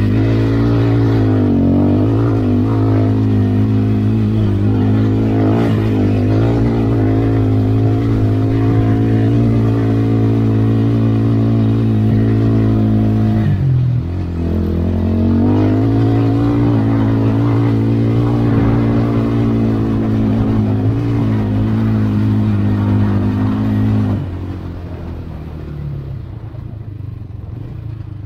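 Polaris Outlaw 525 sport ATV engine running under steady throttle. Its note dips briefly about halfway through and picks back up, then it drops to a lower, quieter note near the end as the throttle is eased off.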